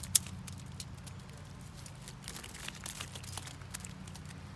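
Handling noise from a wire mesh minnow trap: a sharp click just after the start, then scattered small clicks and rustles.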